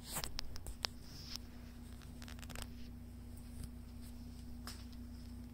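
Handling noise from a phone camera being moved: a quick run of small clicks and rustles in the first couple of seconds, a few more later, over a steady low electrical hum.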